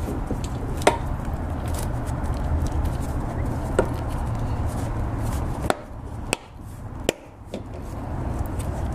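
A plastic side trim panel on a car being handled and pressed into its retaining clips: a few sharp plastic clicks and taps over a steady low hum, which falls away about six seconds in.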